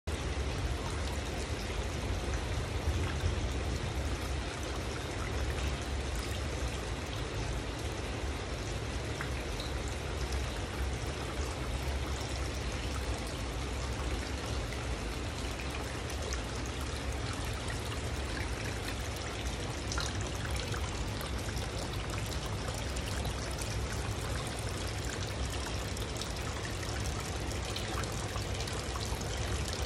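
Water pouring steadily from the spouts of a bamboo-tube waterfall and splashing into an aquarium's water surface, with a low steady hum underneath.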